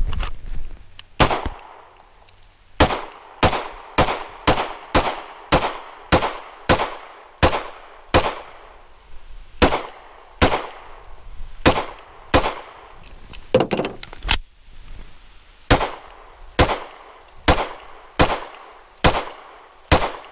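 Handgun fired in quick single shots, about two dozen in all at roughly one and a half to two a second, broken by a couple of short pauses. Each shot is a sharp crack with a brief ringing tail.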